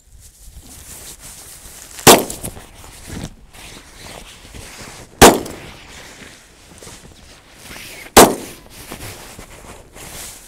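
Semi-automatic pistol fired slowly, one shot about every three seconds: three shots, and a fourth right at the end.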